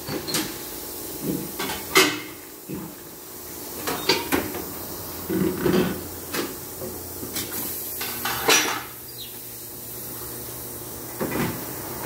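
Scattered knocks and clanks of a car wheel and tyre being handled on a wheel balancer, the loudest about two seconds in and again past eight seconds.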